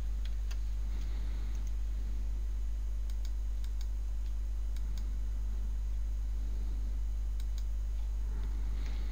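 Sparse clicks of a computer mouse and keyboard, a few at a time, over a steady low electrical hum.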